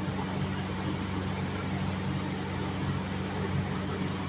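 Steady low mechanical hum with an even hiss over it, a constant background drone.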